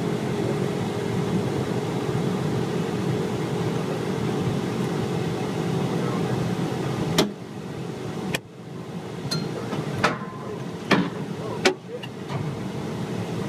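Military patrol vehicle driving, its engine and road noise running steadily. About halfway through a sharp click comes and the engine noise drops, followed by a few more sharp clicks or knocks near the end.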